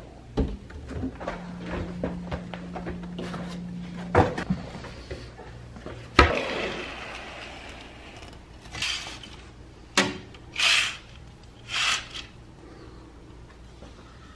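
Hotel-room cabinet doors and drawers being opened and shut: a series of knocks and thuds, the loudest about six seconds in, with a low hum for a few seconds near the start and three short swishes near the end.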